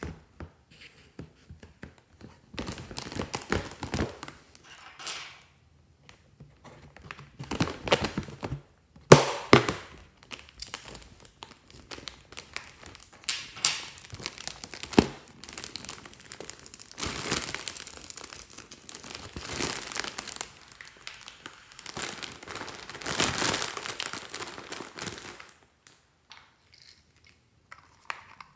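Slime being kneaded and stretched by hand, giving irregular sticky crackling, squelching and tearing sounds in clusters with short pauses between them.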